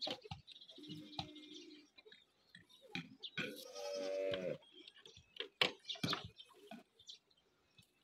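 Water buffalo calf bleating: a short low call about a second in, then a longer, louder call near the middle that drops slightly in pitch as it ends. Scattered sharp knocks come in between.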